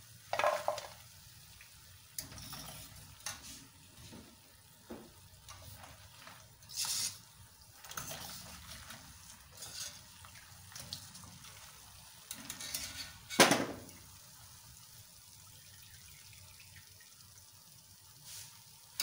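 Steel wire-mesh skimmer scraping and clinking against an iron kadai as crisp fried papdis are scooped out of hot oil and rattle in it, over a faint sizzle of the oil. Irregular clinks and scrapes, with one sharp knock about two-thirds of the way through the loudest.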